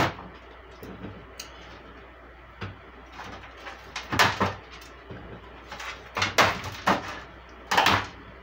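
Set chocolate bark being snapped into pieces by hand on a parchment-lined baking tray: irregular crisp snaps and crackles with paper rustling, several in quick succession near the middle and again near the end.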